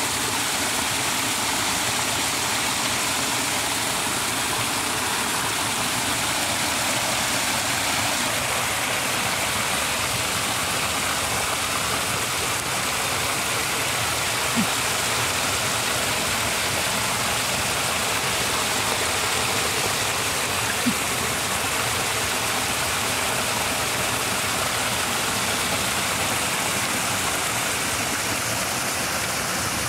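Water streaming down an earthen bank and splashing into a muddy pool, a steady rushing sound, with two faint clicks midway.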